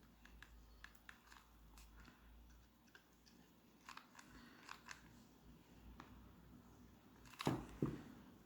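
Faint handling noise of hands pressing and arranging a small crochet piece being hot-glued: scattered light clicks and rustles, with a couple of louder knocks near the end.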